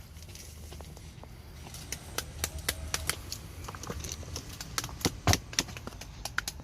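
Wood fire crackling with irregular sharp cracks and pops, growing busier from about two seconds in, over a low steady rumble.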